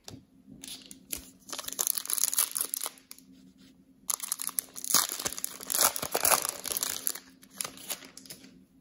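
A plastic Prizm football cello pack wrapper being torn open and crinkled by hand, in two bouts of crackling with a short pause between them.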